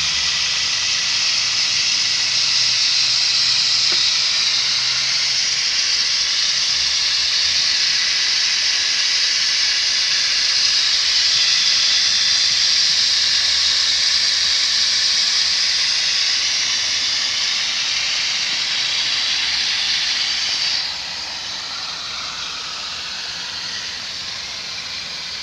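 A pressurized jet hissing steadily as it escapes from a leaking pipe that wooden plugs have failed to seal. Near the end the hiss drops in level and loses some of its high edge.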